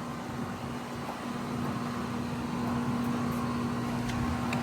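Outdoor unit of a 1.5-ton Trane XR14 heat pump running: a steady hum with a held tone over the rush of the condenser fan, growing slightly louder.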